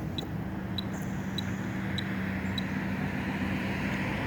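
Steady motor hum and rolling noise of a slow-moving vehicle being driven, with faint, evenly spaced ticks about one and a half times a second that stop partway through.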